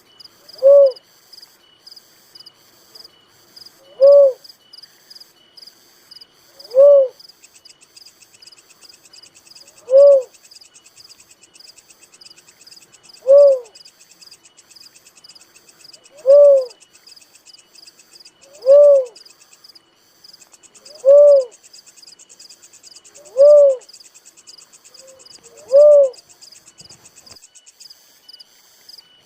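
A dove calling: ten single short hooting notes, each rising and falling in pitch, repeated about every two and a half to three seconds. Insects keep up a rapid high-pitched chirping behind it.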